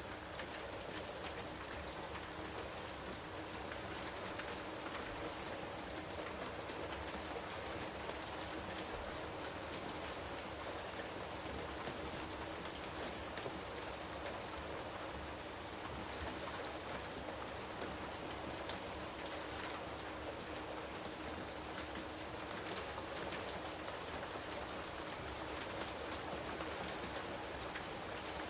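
Steady rain falling in a jungle, with scattered louder individual drops ticking through.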